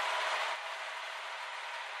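Bandit 1850 drum chipper running steadily with its Caterpillar diesel engine started, no wood being fed.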